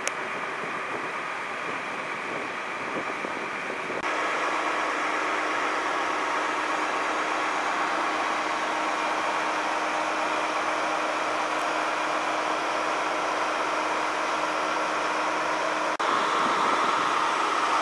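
Steady engine idling under a wash of noise, the sound changing abruptly about 4 and 16 seconds in at cuts in the recording. In the last part, a trolley bus is idling.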